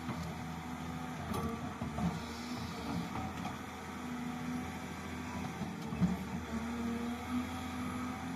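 Engine of a heavy construction machine running steadily, its note shifting a little, with a short clunk about six seconds in.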